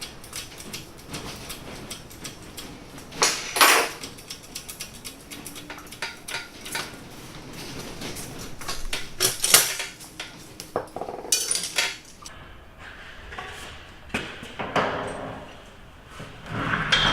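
Irregular light metallic clanks, clicks and knocks, like steel parts or tools being picked up, set down and knocked together, with louder clatters about three and a half seconds in, in the middle and near the end.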